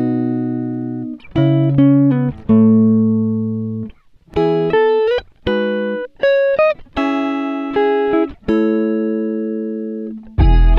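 Background music: a plucked guitar playing single notes and chords, each one ringing and fading, with a fuller, louder passage starting near the end.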